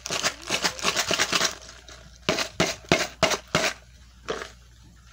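Plastic packaging of a Lego set crinkling and rustling. From about two seconds in, a string of about six sharp plastic clicks and knocks follows as pieces and packaging are handled.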